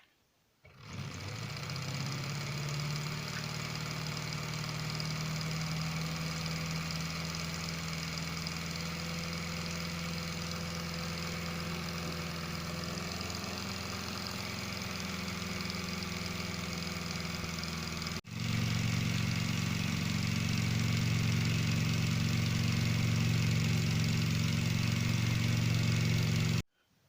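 Small 1.5-volt electric motor whirring steadily as it drives a Lego Technic one-cylinder engine model, its plastic gears and piston turning. It starts about a second in and breaks off for an instant partway through. It comes back a little louder and stops suddenly near the end.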